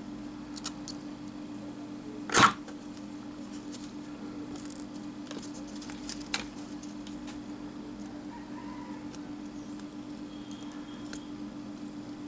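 Faint small clicks and scrapes of tools working on a mobile phone's circuit board while its charging port is desoldered with a soldering iron, with one louder knock about two seconds in, over a steady low hum.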